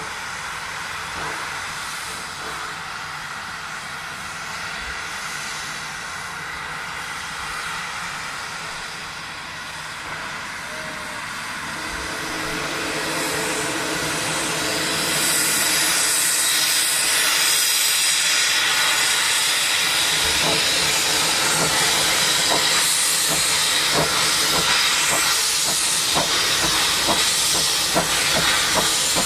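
Baldwin 4-6-2 Pacific steam locomotive standing with steam hissing; about halfway through the hiss grows much louder as the cylinder drain cocks blow. It then pulls away with slow, spaced exhaust chuffs under the steady hiss.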